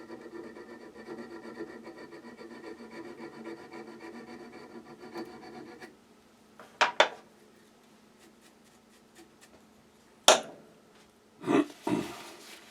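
A 600-grit barrette file rubbed in quick, short strokes against the steel of a wood auger bit, sharpening it, for about six seconds before stopping. A few sharp clacks follow, the loudest about ten seconds in.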